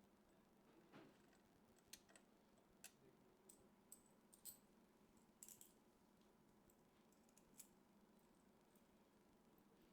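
Near silence with about a dozen faint, scattered clicks and taps.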